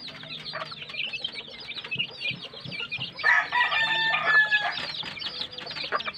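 Gamefowl chicks peeping nonstop, a rapid stream of short, high, falling peeps. About three seconds in, a rooster crows once for about a second and a half, the loudest sound.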